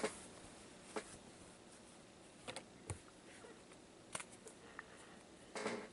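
A few faint, sharp clicks and taps, spaced a second or more apart, with a short rustle near the end.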